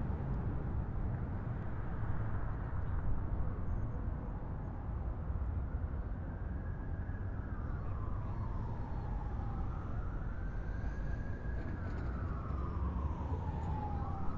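Steady low rumble of a subway train in motion. From about five seconds in, an emergency-vehicle siren wails slowly up and down over it.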